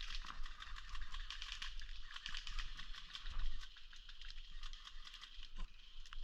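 Airsoft guns firing, a rapid, irregular clatter of sharp clicks and pops that carries on throughout.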